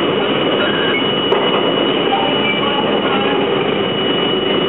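R32 subway train running along a station platform, heard from inside the front car: a steady rumble of wheels on rail with a few short faint wheel squeals.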